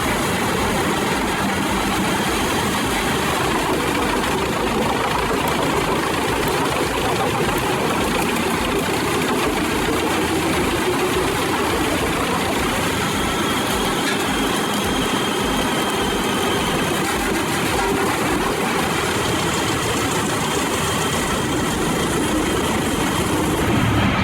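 Large Pezzolato PTH 1300/1500 M wood chipper running, its Caterpillar engine and machinery making a loud, steady, dense noise.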